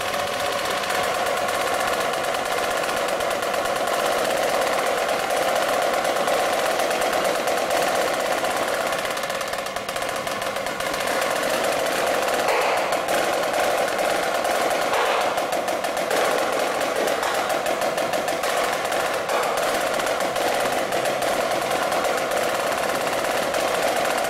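Marching snare drum played solo: fast, unbroken sticking, a dense stream of crisp strokes, with a few louder accents in the second half.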